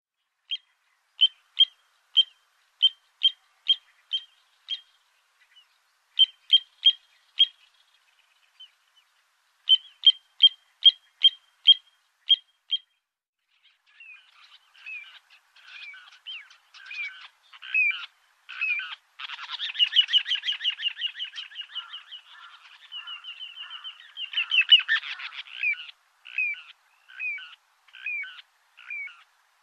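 Little ringed plover calling: runs of short, high piping notes, about two or three a second, broken by brief pauses. In the second half the calls grow more varied and run into a rapid rolling trill for several seconds, then break back into separate short notes.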